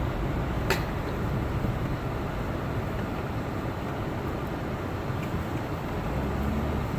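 Steady running noise of an all-wheel-drive Honda Element driving on Continental winter tires through unplowed fresh snow: an even rumble of engine and tyres with no change in pace. A single sharp click comes about a second in.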